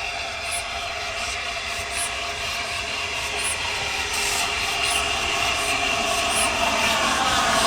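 A train approaching on the line, growing steadily louder, with a steady high ringing from the wheels and rails and a faint tick about every second and a half.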